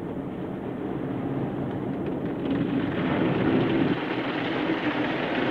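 Kärcher automatic car wash working on the car, heard from inside the cabin: spinning brushes and spraying water and foam on the body make a steady rumble and hiss that grows louder, with the hiss getting brighter about two and a half seconds in as foam and water wash over the windshield.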